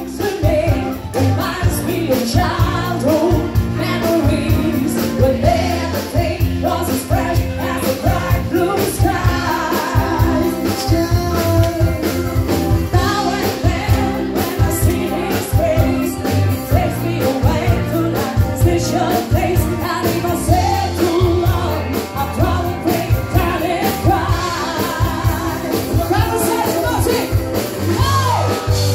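A rock-style song with a singing voice over drums and bass.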